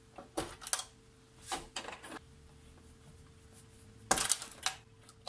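Needle-nose pliers clicking and scraping as they grip and work small plastic wire plugs out of their sockets on a circuit board: three bunches of short clicks, the loudest about four seconds in.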